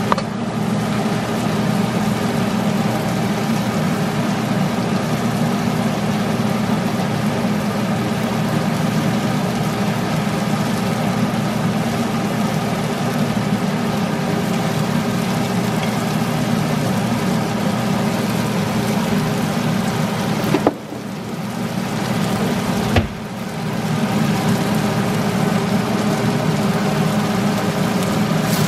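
Sliced pork belly sizzling as it is added to a hot wok of sautéed tomato, ginger and onion, under a loud, steady mechanical hum. The hum drops away for a few seconds about three-quarters of the way through, with a click as it drops and another as it returns.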